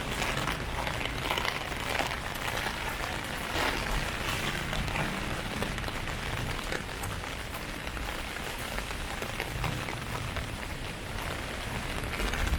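Heavy rain falling on an umbrella: a dense steady hiss with many sharp drop impacts.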